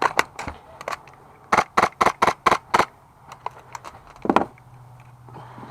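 Airsoft gun firing: a few shots near the start, then a quick string of six shots about a quarter second apart, and one more shot a little later.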